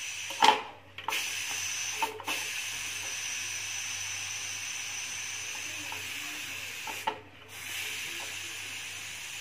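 Aluminium pressure cooker venting its remaining steam through the weighted valve, which is held up with a spoon: a steady hiss. The hiss breaks off briefly three times with a sharp metallic click as the valve shifts, loudest about half a second in. This is the pressure being let down after cooking, before the lid can be opened.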